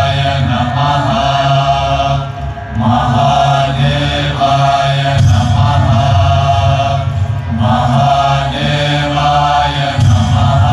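Chanting voices with music in repeated phrases about every two and a half seconds, over a steady low drone.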